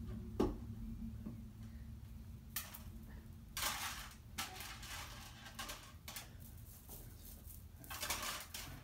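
Plastic bead necklaces clattering against a plastic step stool as they are handled and fed into its holes: a few short rattles, the longest about halfway through.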